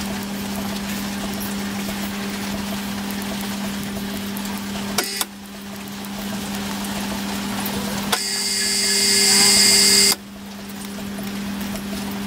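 Steady low mechanical hum with a hiss over it, broken sharply about five seconds in. From about eight seconds a louder high-pitched whine builds for two seconds, then cuts off abruptly.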